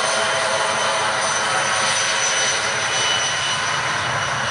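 Bombardier Challenger (CL-600-2B16) business jet's twin turbofan engines running: a steady, loud rush of jet noise with a thin high-pitched whine.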